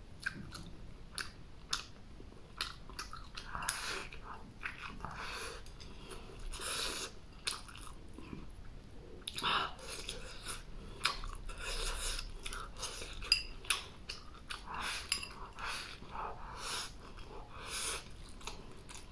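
A person chewing mouthfuls of rice with stir-fried chopped chillies close to the microphone: a string of short, irregular wet chewing and biting sounds.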